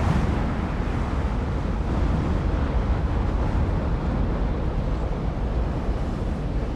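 Storm wind roaring with a deep low rumble, steady and slowly easing toward the end.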